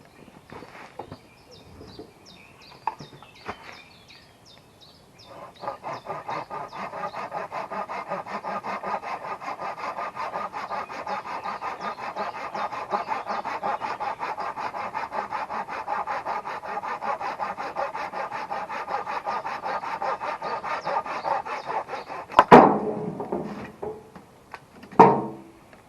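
Hand saw cutting through wood in fast, steady back-and-forth strokes for about seventeen seconds. Two loud knocks follow near the end.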